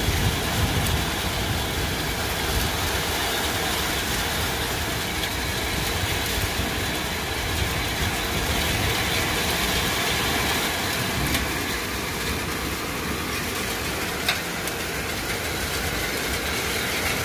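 Hail and heavy rain coming down in a steady, dense roar, with a few sharper ticks of hailstones striking.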